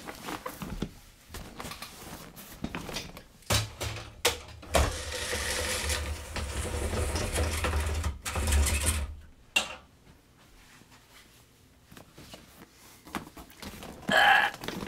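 Handling noise from setting up a pull-up green screen: clicks and knocks as it is unpacked, then a steady rubbing, rustling sound lasting several seconds as the screen is raised, and a short louder noise near the end.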